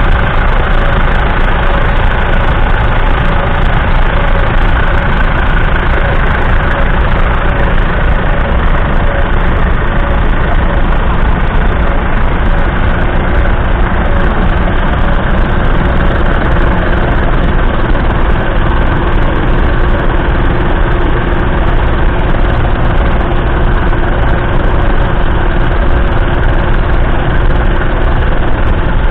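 Massey Ferguson 420 tractor's 3.3-litre three-cylinder diesel engine running at a steady, unchanging speed.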